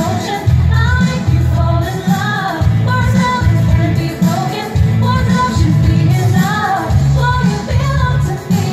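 Pop song with a sung vocal over a heavy, pulsing bass line, playing as dance-show music.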